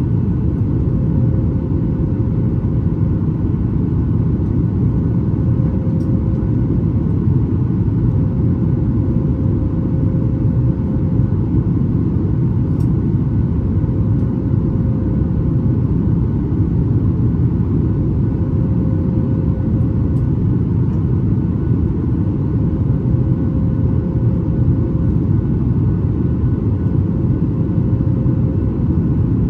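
Steady, loud cabin rumble of a Boeing 737 MAX 8's CFM LEAP-1B engines and airflow heard from a window seat behind the wing, with a faint steady hum above the rumble.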